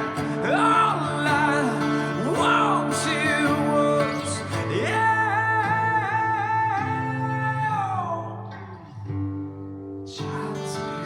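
A song with singing over guitar, played back through Starke Sound Beta5 compact speakers in an echoey room. Halfway through the singer holds one long note with vibrato, and the music dips quieter for a moment before picking up again.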